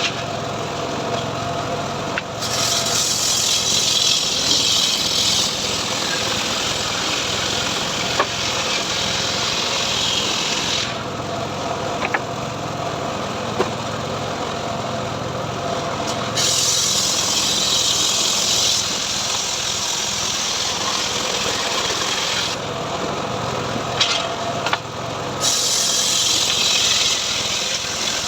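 Engine-driven sawmill rig cutting a teak log into boards. The engine runs steadily throughout, and a hissing rasp from the blade in the wood comes and goes in three long stretches as cuts are made.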